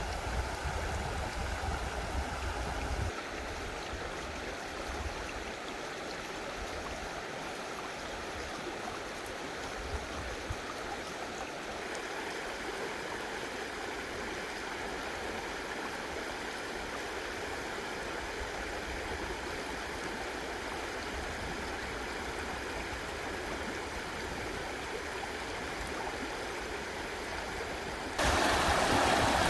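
Mountain stream rushing and burbling over rocks in a valley, a steady flow of water that turns suddenly louder near the end.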